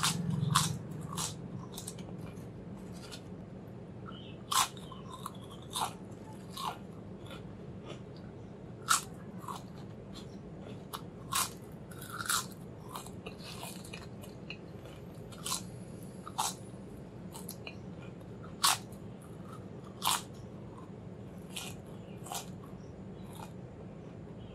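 Close-up crunching of thin and ridged potato chips being bitten and chewed. Sharp, crisp crunches come irregularly, about one every second, some much louder than others.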